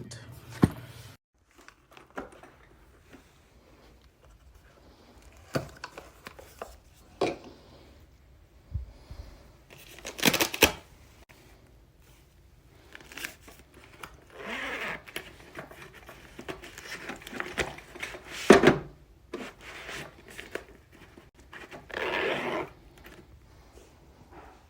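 Handling noises from a soft-sided makeup train case: scattered knocks and clicks, and three short rasping pulls like a zipper or hook-and-loop divider. The loudest is a single sharp knock near the end.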